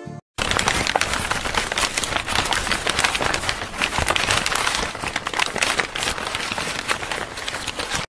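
Dense crackling noise full of sharp ticks, with no tune or voice: a logo intro sound effect. It starts suddenly after a brief gap and cuts off abruptly.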